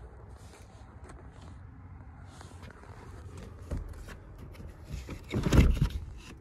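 Handling noise from a camera being moved through a vehicle's rear seating: faint rustles and small clicks, a light knock a little before four seconds in, then a loud rubbing scrape for under a second near the end as it brushes against a seat.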